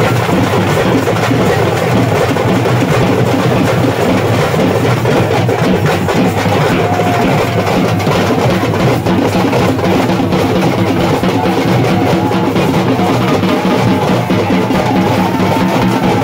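Loud music with dense, fast drumming, and a faint held high tone coming in near the end.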